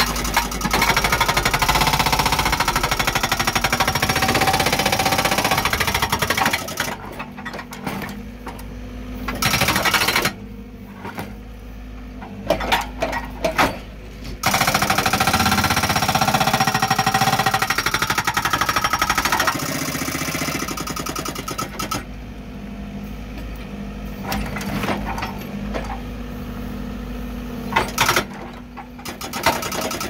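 Backhoe-mounted hydraulic breaker hammering rock in rapid blows, in bursts: about six seconds of hammering, a short burst near ten seconds, and another five seconds or so in the middle. Between bursts the backhoe's engine runs steadily, with a few sharp knocks near the end.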